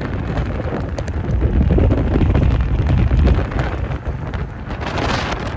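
Strong wind buffeting the microphone in gusts, a loud low rumble that swells in the middle and then eases.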